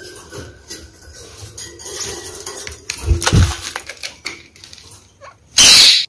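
Red-fronted kakariki parakeets moving about their cage: scattered clicks, taps and rustling, with a low thump about three seconds in and a loud burst of rustling just before the end.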